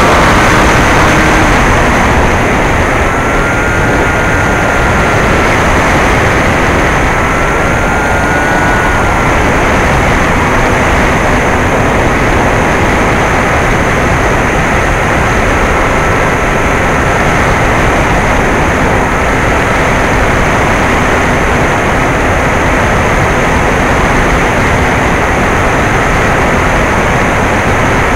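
Bixler 2 RC plane in flight, heard from its onboard camera: the NTM 1400kv brushless electric motor and 9x6 propeller whining under a loud, steady rush of airflow. The whine twice briefly shifts up and down in pitch.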